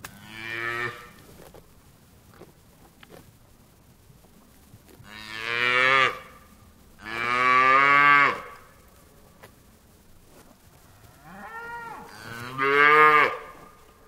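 A cow mooing: five long, low calls with gaps between them. A shorter, quieter moo comes first, two loud ones follow about a second apart, and near the end a softer call runs straight into a final loud one.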